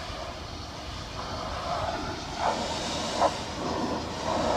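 Pressure washer spraying a standing-seam metal roof: a steady hiss over a low rumble, with two short louder sounds about halfway through.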